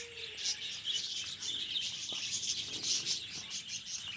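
Packing material rustling and crinkling as it is handled, a dense run of small crackles.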